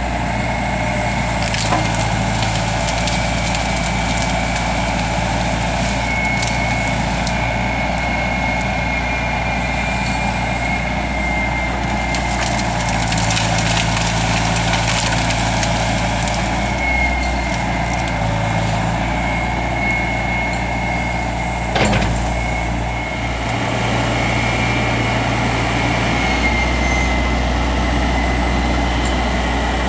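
Diesel engine of a wheeled Sennebogen excavator running steadily, rising and falling as the hydraulics take load, with a steady high whine over it. Brush snaps and crackles in the bucket, and a single sharp crack comes about two-thirds of the way through.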